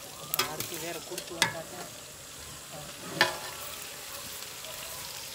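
Prawns frying in hot oil with a steady sizzle. A metal ladle stirs them, clinking sharply against the pan about three times.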